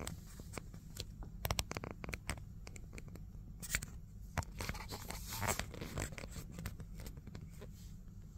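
Irregular scratching, rustling and clicking close to the microphone, typical of a hand or clothing rubbing on a phone as it is held. It is busiest in the middle, with a longer scrape around five seconds in, over a steady low hum.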